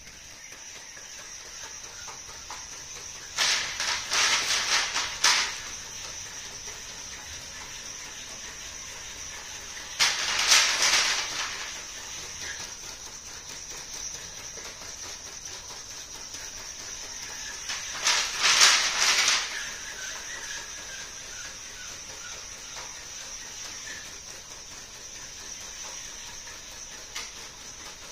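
Servos of a 3D-printed quadruped robot (Dynamixel XM430-W210) walking, with a steady high-pitched whine throughout. Three bursts of clattering and scraping, each a second or two long, come a few seconds in, near the middle and about two-thirds of the way through.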